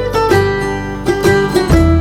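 Background music: quick plucked-string notes in an upbeat, bluegrass-like run over a steady bass.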